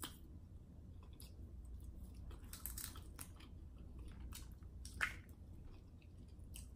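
Crab legs being cracked and picked apart by hand and the meat chewed: faint crackles of shell with a few sharp clicks, the loudest about five seconds in.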